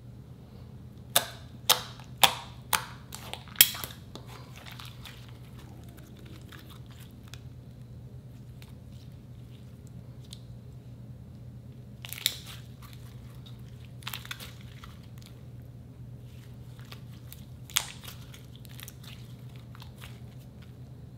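Glossy slime squeezed and poked by hand, giving sharp clicking pops as air pockets in it burst. There is a quick run of about six in the first few seconds, then single pops at intervals, over a faint steady hum.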